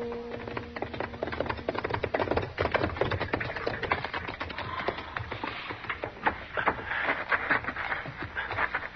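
Crackling and snapping of burning wooden buildings, a radio sound effect of a ranch house and barn still burning. The tail of a held brass music chord fades out over the first second or so.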